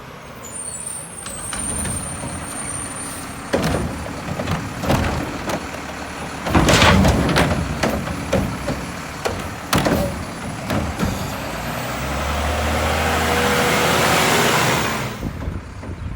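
Mack garbage truck with a Heil body running, with a string of sharp metal clanks and bangs in the middle. Near the end comes a long swelling hiss.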